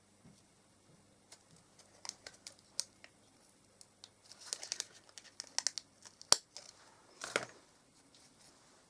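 Quiet rustling and crinkling of card and ribbon being handled, with scattered small clicks, a sharper click about six seconds in and a brief scrape about a second after it.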